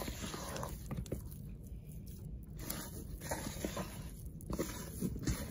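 Hands kneading wet, sticky no-cook playdough in a bowl: soft, irregular squelching and squishing. The dough is still gooey, not yet at playdough consistency.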